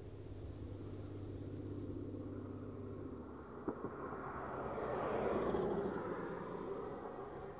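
A vehicle passing by: a rushing sound that swells to its loudest a little past the middle and then fades. Under it runs a steady low engine hum that drops away about three seconds in, and there is a single sharp click just before the swell.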